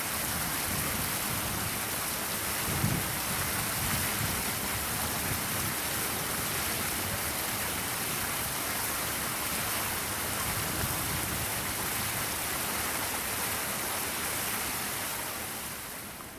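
Steady rushing hiss with uneven low rumbling gusts, typical of wind buffeting the microphone; it fades near the end.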